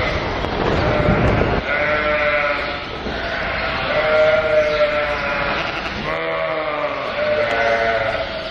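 Sheep bleating: several long, wavering calls overlapping one after another from about two seconds in, after a short stretch of low rumbling noise.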